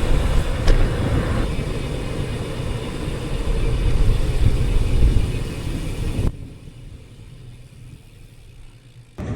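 Loud, steady low rumble of riding noise, rushing air and road noise, as a touring bicycle coasts downhill through a road tunnel. About six seconds in it drops suddenly to a much quieter hiss.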